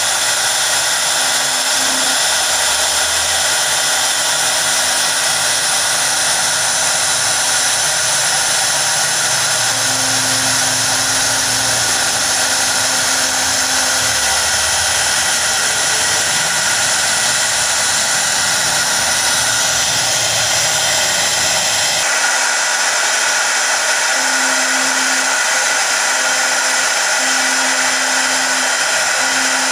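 CNC router spindle running steadily with a high-pitched whine while its V-bit engraves lettering into a board, the bit hissing as it cuts.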